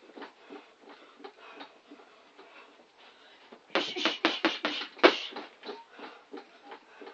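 Boxing gloves punching an Everlast standing punching bag: scattered lighter hits, then a quick flurry of about seven punches about halfway through, ending in one harder hit.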